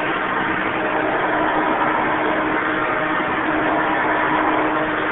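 Hoover Elite 200 upright vacuum cleaner running steadily while leaned back, a constant motor hum with a steady tone. It has a new drive belt and a brush roll with new bearing caps and bearings.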